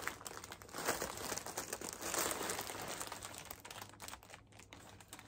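Tissue paper crinkling and rustling in irregular handfuls as a package is unwrapped, loudest about one and two seconds in and thinning out near the end.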